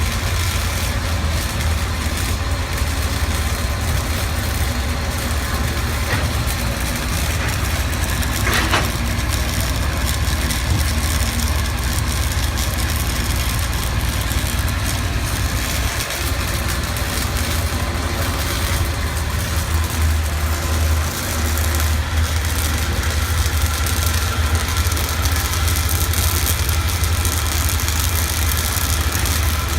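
Self-shielded flux-cored wire arc welding: a steady, continuous crackle from the arc. Under it runs a steady low engine drone.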